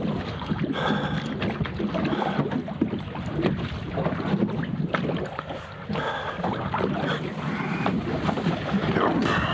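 Wind on the microphone and water washing against a small boat, with scattered small clicks and knocks throughout.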